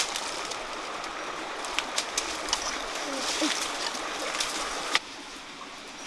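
A dove cooing a few low, short notes over steady background hiss, with scattered sharp clicks.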